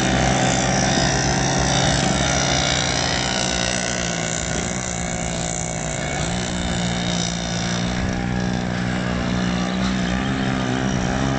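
Several small motorcycles and mopeds racing, their engines running in a steady drone. The pitch dips briefly about halfway through.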